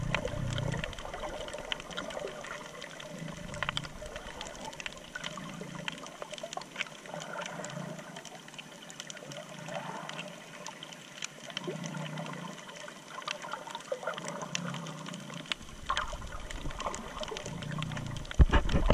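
Water sound picked up by a camera held underwater while snorkelling over a coral reef: a steady sloshing and trickling hiss scattered with short crackling clicks, with soft low swells every couple of seconds. A sharp, louder knock comes right at the end.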